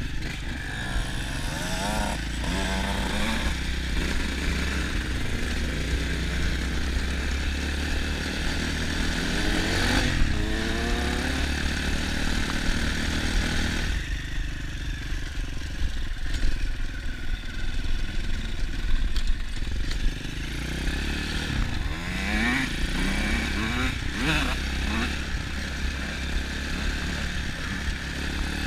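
The 150 cc Apollo pit bike's engine heard from on board, revving up through the gears in several rising runs, over a steady low wind rumble on the camera.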